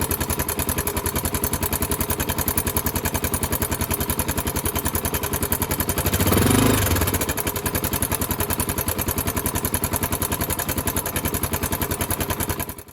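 Honda XR400M single-cylinder four-stroke engine idling with an even, rapid beat and a mechanical clatter from around the cylinder head, the abnormal noise being investigated. The engine is blipped briefly about six and a half seconds in, and the sound cuts off suddenly at the end.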